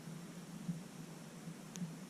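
Quiet room tone: a faint steady low hum with hiss, and a soft click about two-thirds of a second in.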